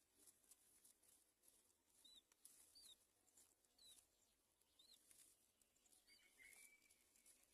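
Near silence with faint, short, high bird chirps about once a second, five in all, and a longer faint note about six seconds in.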